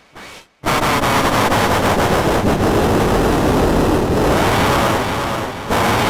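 Train horn sound effect from a phone app, played with distortion turned all the way up so that it comes out as a harsh, noisy blare rather than a clean chord. It is one long blast starting about half a second in, with a brief break near the end before it sounds again.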